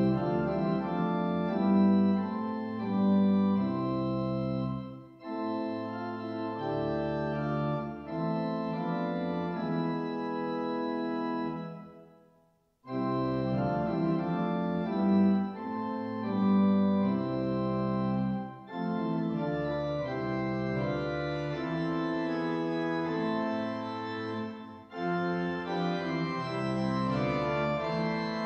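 Organ music: slow, sustained chords over held bass notes, played in phrases with short breaks. About twelve seconds in it fades away to silence for a moment, then starts again.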